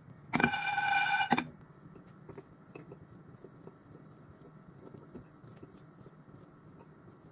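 A loud, steady pitched tone with overtones sounds for about a second near the start. After it come faint, scattered clicks of a small knife cutting against a ceramic plate.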